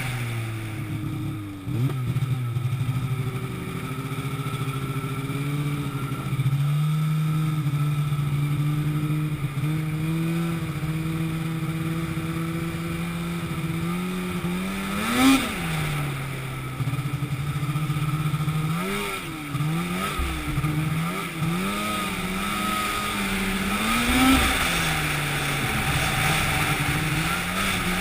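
An engine running with its speed changing: it holds steady for a while, revs up sharply and briefly about halfway through, then rises and falls several times.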